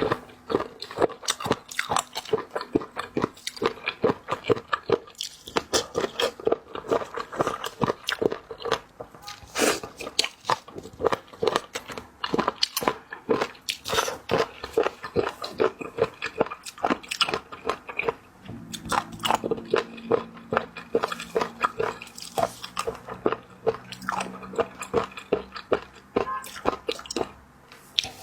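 Close-miked mouth sounds of a person biting and chewing seafood: a dense run of sharp chewing clicks and bites, several a second.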